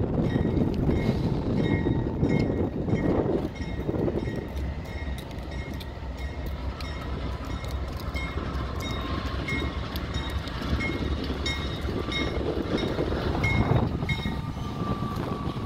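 CN freight train's diesel locomotives rumbling as they approach, with a bell dinging steadily, about four strikes every three seconds. A thin high tone joins in about halfway through.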